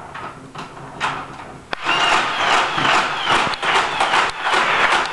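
Nerf Vulcan belt-fed foam-dart blaster firing on full auto: a single click, then from about two seconds in a rapid, loud mechanical clatter as the belt feeds through.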